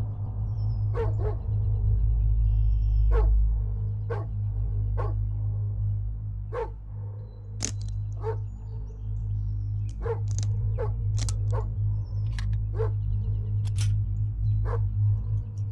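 A dog barking repeatedly, short single barks about once a second at uneven intervals, over a low steady drone of music.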